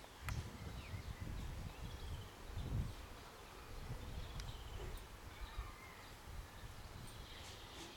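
Outdoor garden ambience: birds giving short, scattered chirps and brief calls, over an irregular low rumble that swells loudest about three seconds in.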